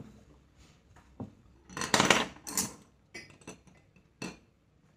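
Chopsticks clinking and scraping against a ceramic bowl of noodle soup, a scattered series of knocks with the loudest cluster about two seconds in.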